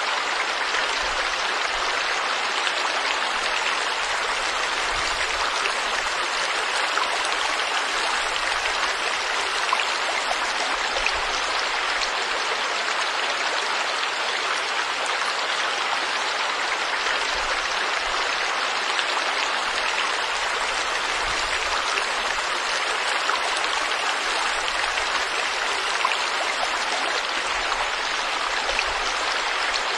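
River water flowing, a steady even rush that does not let up.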